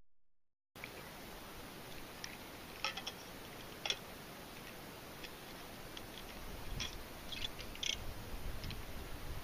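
Faint steady outdoor hiss, starting about a second in, with a handful of small scattered clicks and ticks from a man handling a metal flask.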